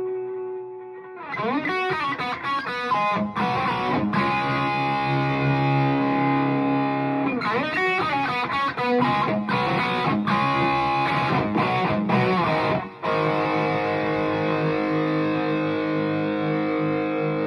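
Gibson Les Paul R9 electric guitar played through a 3rd Power Kitchen Sink tube amp head with overdrive. A held note fades out, then fast riffs and chords start about a second in; the playing stops short for a moment near the end and a final chord is left ringing.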